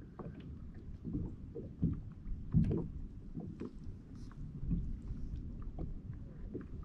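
Water lapping against a fishing kayak's hull, with irregular soft slaps and knocks over a low rumble.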